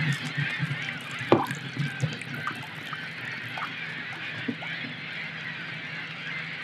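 Geese honking: a few short falling calls, over a steady low hum.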